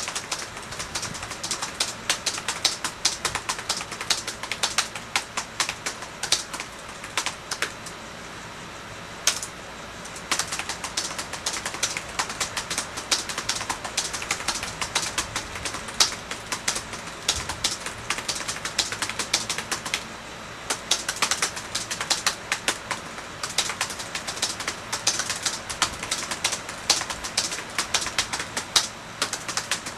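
Fast, continuous typing on the newly installed keyboard of a Lenovo ThinkPad T430 laptop, its keys clicking in quick uneven runs, with brief pauses about nine seconds in and again near twenty seconds; the keyboard is being tested after replacement.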